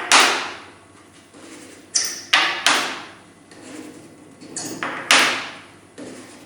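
Tungsten carbide inserts being slid off a permanent magnetic chuck, a handful of sharp metallic scrapes and clacks, each starting suddenly and fading within a second; the strongest come right at the start, three close together about two seconds in, and one about five seconds in.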